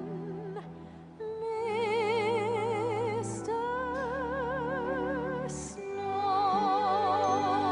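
Operatic show-tune music: long held notes with wide vibrato over a sustained orchestral accompaniment, moving to a new note about every two seconds.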